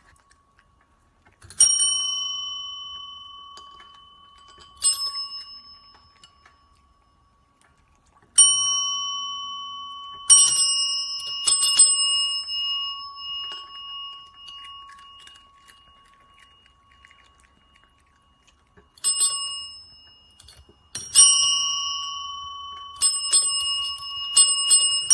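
Chrome service bells tapped by cats' paws: single dings a few seconds apart, each ringing on and fading slowly, then a quick run of dings near the end.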